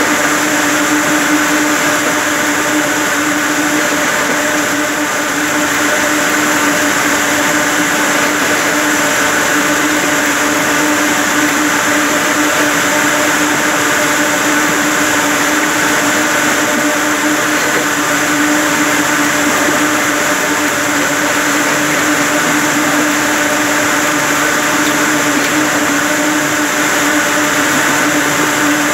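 Ring spinning frames running: a loud, steady whir of many spindles turning at speed, with a constant hum throughout.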